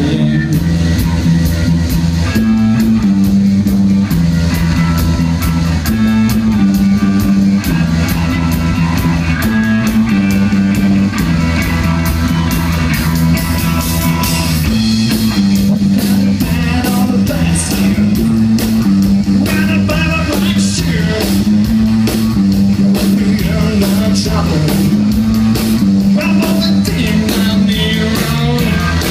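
Live rock band playing: electric guitar, electric bass and drum kit, with a repeating bass line under a steady beat and a man singing at the microphone.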